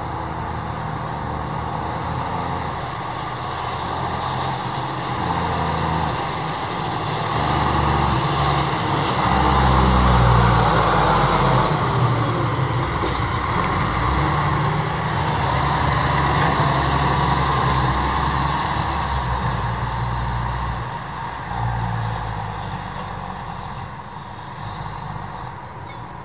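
Fire department tanker truck's engine approaching, passing close and pulling away, loudest about ten seconds in. The engine note steps up and down over the road noise.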